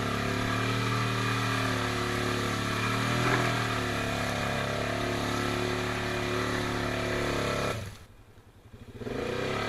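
Honda Rincon 680 ATV's single-cylinder four-stroke engine running at a fairly steady pitch under load as the quad works through deep mud, with a brief knock about three seconds in. The sound drops away for about a second near the end, then comes back.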